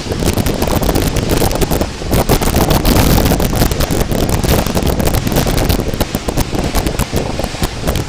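Wind buffeting the microphone on a moving boat: a loud, continuous rumble with constant crackling gusts.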